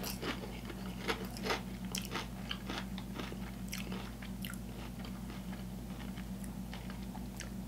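A mouthful of potato chips being chewed: crisp crunching crackles, thickest in the first couple of seconds and then thinning out.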